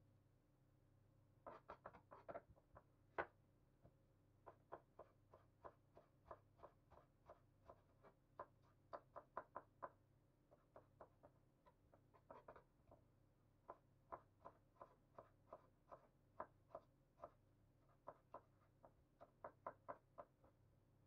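Large kitchen knife slicing an onion into thin slivers on a wooden cutting board: a run of sharp taps of the blade against the board, about two or three a second with short pauses, starting about a second and a half in.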